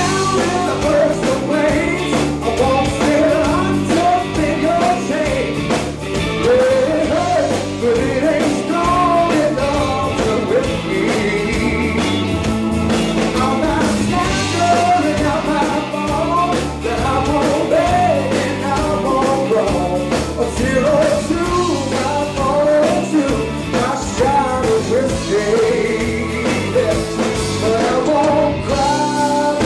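Rock band playing with a male lead vocalist singing over electric guitar, bass guitar and drum kit.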